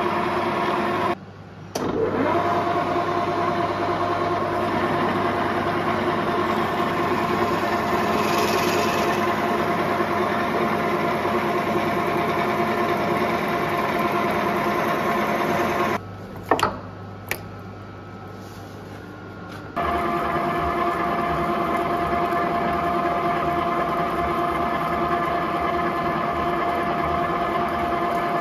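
Elliot Victoria V2 milling machine drilling holes in a steel plate: steady machine running with a constant whine. The sound drops away briefly about a second in, and again for about four seconds past the middle, where two sharp clicks sound.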